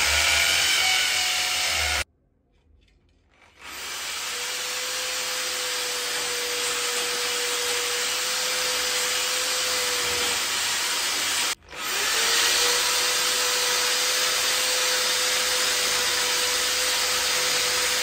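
Corded electric drill boring holes into a ceiling for wall plugs, its motor running with a steady whine. It stops suddenly about two seconds in, starts again a second and a half later, cuts out for a moment about two thirds of the way through, then runs on.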